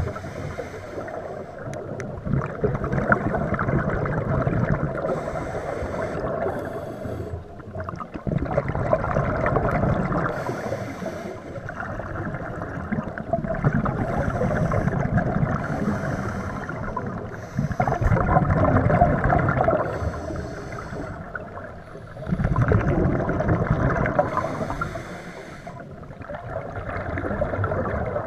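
Underwater scuba breathing through a regulator in a slow cycle of about one breath every four to five seconds. Each breath is a short high hiss of inhalation, followed by a longer, louder rumble of exhaled bubbles.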